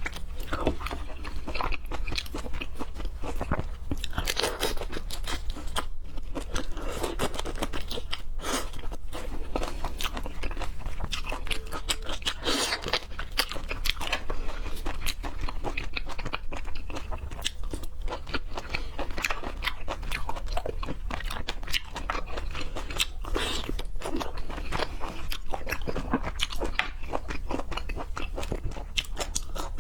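Close-miked eating of seafood: continuous wet chewing with crunchy bites and mouth clicks, irregular and steady throughout.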